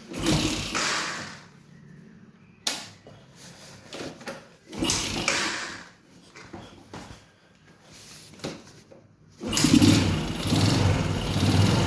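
Yamaha Jupiter MX 135 cc single-cylinder four-stroke motorcycle engine being started: a few short cranking attempts in the first half, then the engine catches about nine and a half seconds in and runs steadily at idle.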